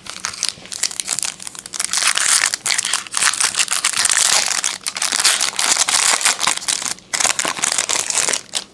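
A trading-card pack wrapper being crinkled and torn open, with continuous crackling that dips briefly about seven seconds in.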